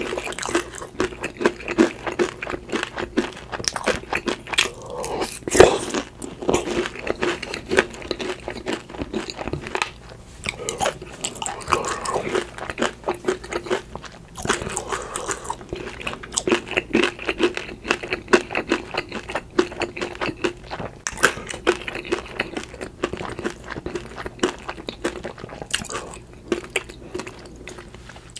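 Close-miked eating sounds: a person chewing and biting, with crunchy bites and wet mouth noises in quick succession.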